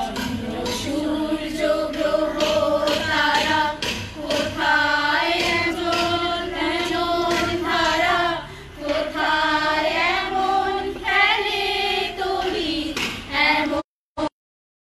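A group of mostly women's voices singing together in unison, holding long notes, with no instruments heard. The sound cuts out abruptly about a second before the end.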